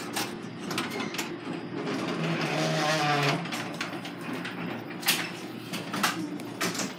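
A garage door sliding open, with a rumble that swells about two to three seconds in, among several sharp clicks and knocks.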